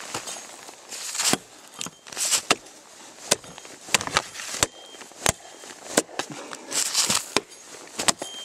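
Cold Steel Norse Hawk tomahawk chopping limbs off a dead tree: a string of sharp strikes into the wood at an uneven pace, roughly one every half second to a second.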